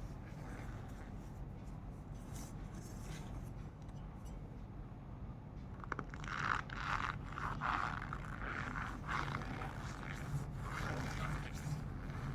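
Cornstarch squeezed and pressed by hand, giving short squeaky scraping sounds. They are soft and sparse at first, then come as a run of louder squeaks from about halfway through.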